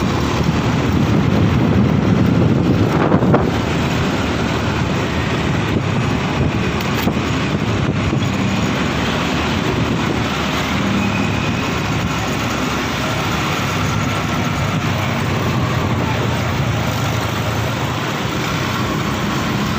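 Wind buffeting the microphone over steady vehicle engine and road noise while riding along in traffic, a little louder about two to three seconds in.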